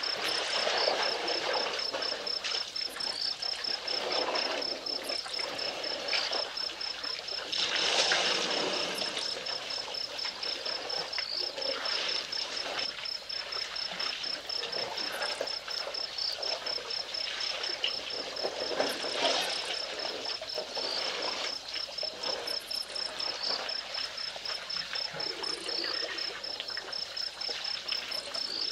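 A cricket keeping up an evenly pulsed, high-pitched chirping, over irregular splashing and sloshing of water as an elephant herd drinks at the water's edge, swelling loudest about eight seconds in.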